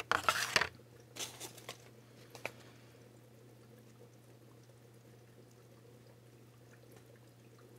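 Packaging rustling and crinkling in a few noisy bursts over the first two seconds as an item is lifted out of a cardboard box, with a light tap at about two and a half seconds. After that, only a faint steady low hum.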